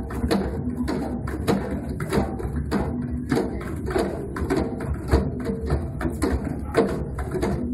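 An ensemble of djembe hand drums played together by hand in a busy, steady rhythm.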